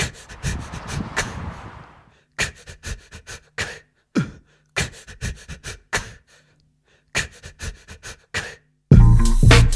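Sparse vocal-style percussion: short clicks and breathy hits in clusters with pauses between them, and a couple of falling low thumps. About nine seconds in, the full song's beat and bass begin.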